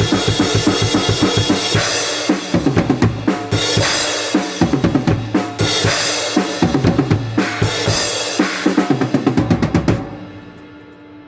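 Drum kit played fast and dense, with bass drum and snare hits over music, stopping about ten seconds in; a low steady hum remains after it.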